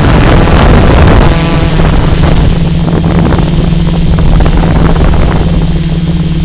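Multirotor drone's motors and propellers whirring at a steady pitch while it hovers and drifts, heard from the camera it carries, with wind buffeting the microphone hardest in the first second or so.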